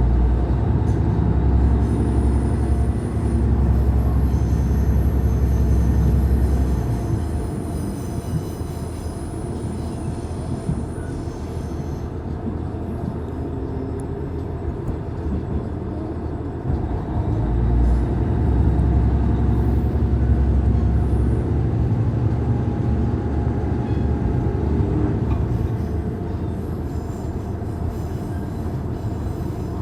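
Diesel railcar running along the line, heard from inside, its engine hum heavy at the start, easing off, then pulling hard again past the middle. Faint high wheel squeal comes in for a few seconds near the first third.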